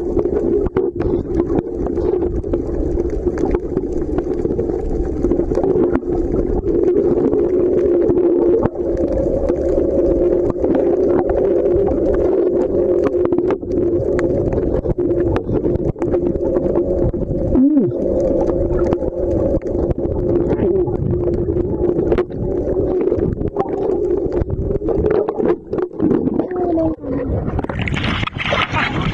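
Underwater sound: a steady drone, most likely a boat's engine carried through the water, with many small clicks and gurgles; the drone dips briefly with a short rise in pitch about two-thirds of the way in. Near the end the camera breaks the surface and the sound opens into loud splashing and wind hiss.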